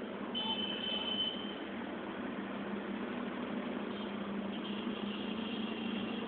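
Motorbike traffic through a busy intersection: a steady mixed hum of small engines and tyres. A thin, high tone sounds for about a second shortly after the start, and again near the end.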